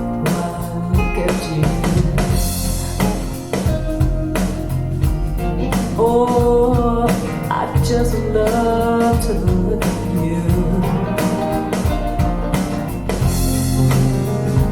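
A song with singing, guitar and drums, played back through Focal Aria 906 bookshelf speakers. The singing is clearest in the middle.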